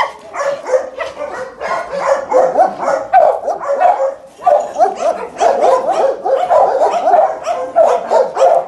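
Several dogs barking at once: a dense run of short, overlapping barks with hardly a pause.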